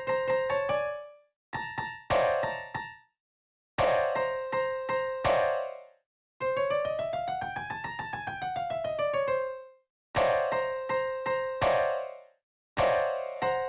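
Virtual piano in FL Studio playing a melody in short phrases of struck notes, with brief gaps of silence between them. In the middle a quick run of notes climbs and then comes back down.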